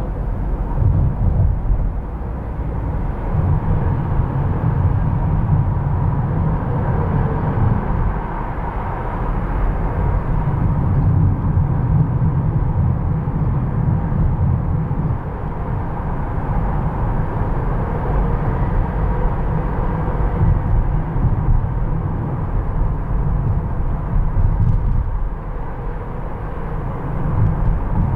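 Steady low rumble of a car driving along city streets: road, engine and wind noise.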